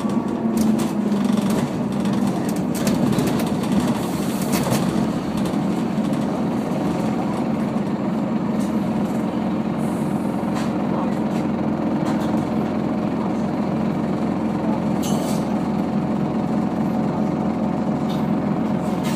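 Diesel engine of a Scania OmniDekka double-decker bus heard from inside the passenger saloon, louder for the first few seconds, then settling to a steady idling hum at a bus stop, with a few faint clicks and rattles.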